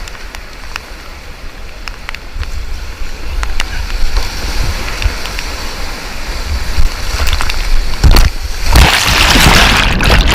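Whitewater rapids rushing around a kayak, with a heavy low rumble on the helmet-camera microphone and scattered sharp knocks. The water grows louder a few seconds in, and near the end a loud splash as the kayak crashes through a wave.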